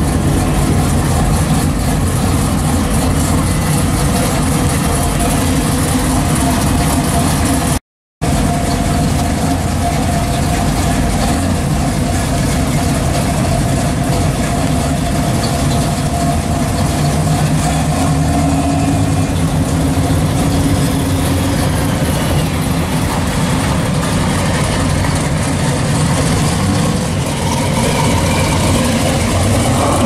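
Classic American muscle cars' V8 engines idling and running low through their exhausts as the cars creep past one after another. The sound cuts out briefly about eight seconds in.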